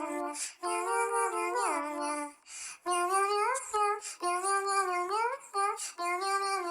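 A high, childlike voice singing a melody in short phrases with brief pauses between them.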